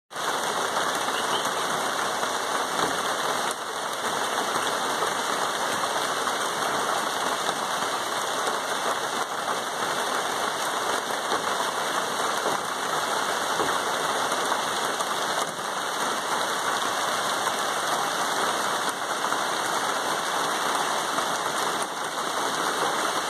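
Steady rain falling on rainforest foliage: a constant, even hiss with no let-up.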